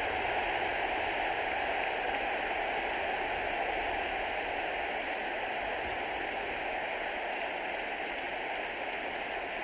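Football stadium crowd cheering a home goal: a steady, dense roar that eases slightly toward the end.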